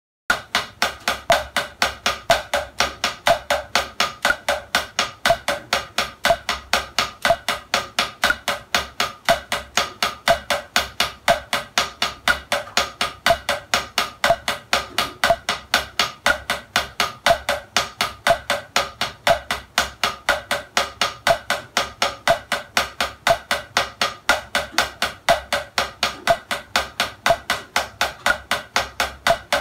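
Drumsticks on a rubber practice pad playing a double stroke roll, two strokes per hand (RRLL), as an even, unbroken stream of sharp taps at a steady pace. It starts about a quarter second in.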